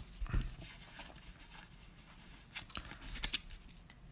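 Pokémon trading cards being handled in a stack: faint rustling and short clicks of card stock sliding against card. There is a small cluster of clicks about two and a half to three and a half seconds in.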